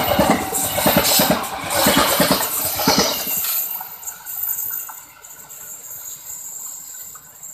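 Stainless-steel passenger coaches passing close by, wheels clattering over the rail joints, the noise dropping away sharply about three seconds in as the last coach recedes. A steady high insect trill remains under the fading train.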